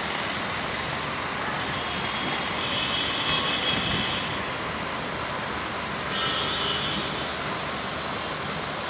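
Steady background traffic noise of a town. A high-pitched tonal sound comes in twice over it, about two and a half seconds in and again around six seconds.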